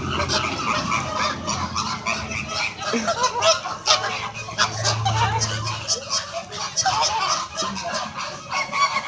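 A flock of flamingos calling continuously, many short overlapping honks in a dense, squawking chatter.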